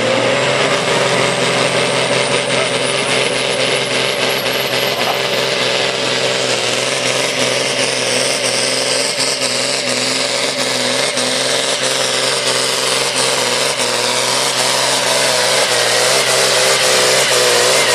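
Supersport-class pulling tractor's diesel engine running flat out at its capped maximum of 2700 rpm, under load through a pull down the track. The steady engine note wavers slightly, with a high whine that rises over the first few seconds.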